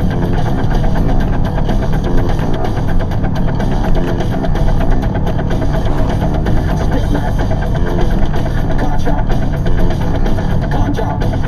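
Rock song with drums, bass and guitar playing on a radio.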